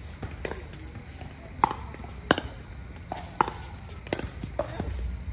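Pickleball rally: a quick, irregular series of sharp pops as the hollow plastic ball comes off paddles and the court, about eight in five seconds, several with a short ring.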